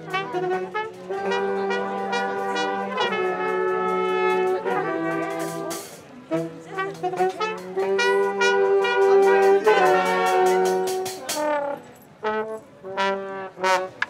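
Street brass band playing live: trombones and trumpets hold long chords over a steady sousaphone bass line, with a bass drum striking the beat. Near the end the tune breaks into short, punchy notes.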